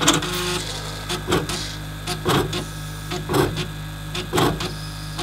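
DS2 ELISA processor's plate washer aspirating a 96-well plate: a steady pump hum with a louder burst about once a second as the wash head moves from column to column drawing the liquid out of the wells.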